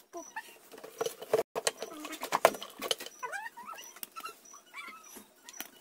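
Clicks and knocks of a power cord and plug being handled around computer cases. Short squeaky sounds that slide up and down in pitch come in between about three and five seconds in.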